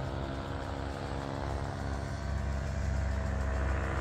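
Small two-stroke paramotor (powered paraglider) engine droning steadily overhead, getting louder a little past halfway.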